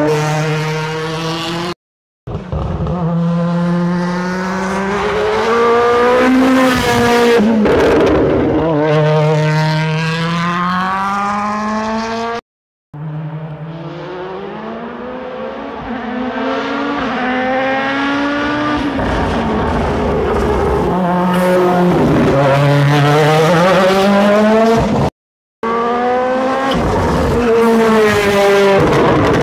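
World Rally Car's turbocharged 1.6-litre four-cylinder engine at full throttle through the gears, pitch climbing and dropping sharply at each gear change. It comes as several short clips joined, with three brief silences between them.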